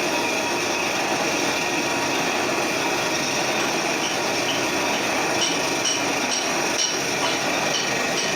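Metal lathe running and cutting: a steady grinding, rasping machine noise, with faint regular ticking joining about halfway through.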